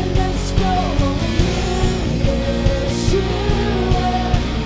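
Live worship band music: a woman's lead vocal sung over electric guitar, keyboard and drums keeping a steady beat.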